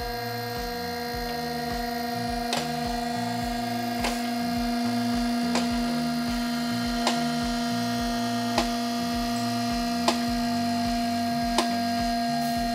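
Two-post car lift raising a car: its electric hydraulic pump motor runs with a steady hum while the safety locks click past each notch about every one and a half seconds.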